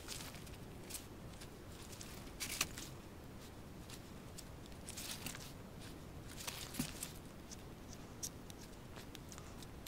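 Faint, irregular small clicks and crackles of a knife blade cutting the skin and membrane away from a squirrel's skull around the eye, with gloved hands pulling the pelt.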